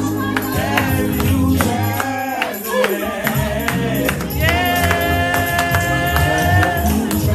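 Live gospel church music: a tambourine shaken and struck to a steady beat under singing, with one long high note held in the second half.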